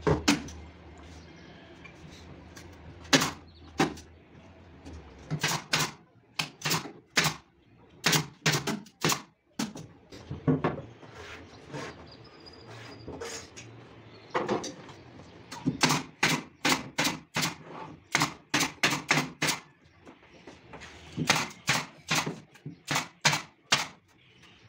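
Runs of sharp knocks, about two to three a second, with short pauses between the runs.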